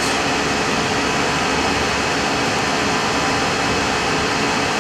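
Steady flight-deck noise of an Airbus A320 in the climb: an even rush of airflow, air conditioning and engine noise with a few faint steady tones, unchanging throughout.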